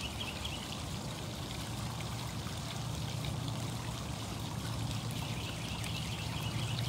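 Steady rush of running, trickling water, with a low hum underneath.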